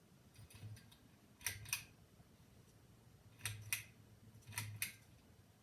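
Three pairs of sharp clicks, spaced a second or two apart, from a Harbor Breeze Springfield ceiling fan's pull-chain speed switch being pulled to change speed.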